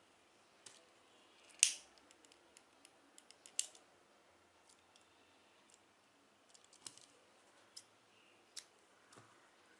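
Scattered sharp clicks and snips from close handwork on nylon macrame cord: plastic beads being handled, a lighter, and scissors cutting the cord, with the loudest click about one and a half seconds in.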